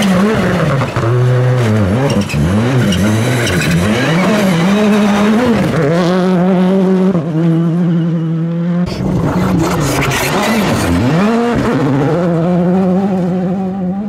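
Rally cars at full attack on a gravel stage, engines revving high and dropping sharply again and again through gear changes and lifts, over a steady spray of gravel and tyre noise. The engine note changes abruptly about nine seconds in as another car takes over.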